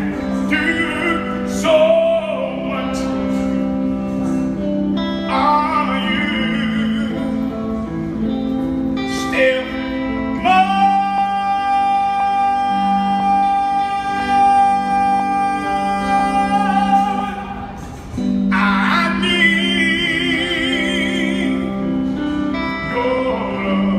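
A solo singer with instrumental accompaniment. The voice sings phrases with vibrato over sustained low backing notes, then holds one long high note for about six seconds from roughly ten seconds in, before singing on.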